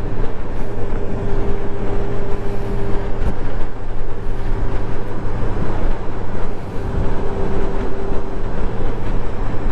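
Honda Gold Wing touring motorcycle cruising at highway speed, heard from the rider's seat: a steady engine hum under heavy wind and road noise. The level dips briefly about seven seconds in.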